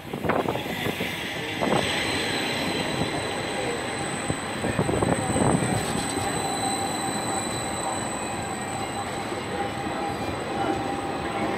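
Edinburgh tram (CAF Urbos 3) running along the street, its wheels squealing on the rails with a steady high-pitched whine over rolling noise.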